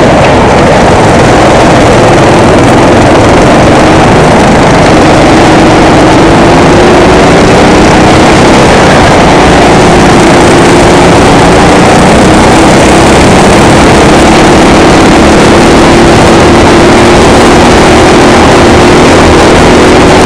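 Racing go-kart engine running hard, its pitch slowly rising and falling as the kart accelerates and slows through the corners. The recording is so loud that it is distorted.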